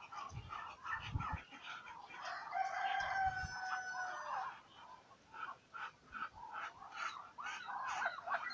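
A rooster crows once, a long held call starting about two and a half seconds in and lasting around two seconds, among short clucking calls from the poultry around it.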